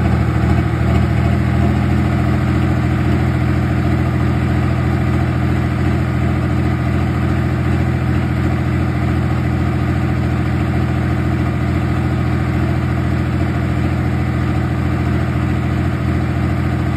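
AGCO DT200 light-limited super stock pulling tractor's diesel engine idling steadily, a slight wobble in its pitch in the first second or so.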